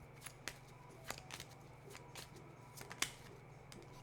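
Tarot cards being handled: a scattering of short, sharp clicks and snaps, the strongest about three seconds in, over a faint steady low hum.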